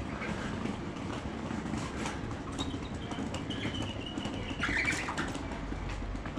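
A bird calling in a strained way, like a sick bird: a thin high note in the middle, then a short, louder call about three-quarters of the way through, over a steady outdoor background hum.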